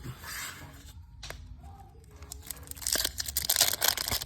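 A trading-card pack wrapper being torn open and crinkled, with a sharp click a little over a second in. The loudest tearing starts near the end.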